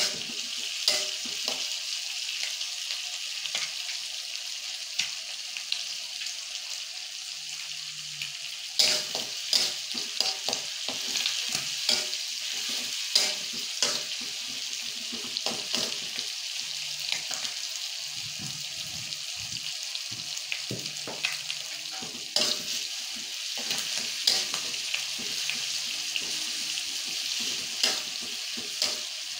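Tongkol fish pieces and chili paste sizzling in hot oil in a metal wok, with frequent sharp scrapes and clicks of a spatula stirring against the pan.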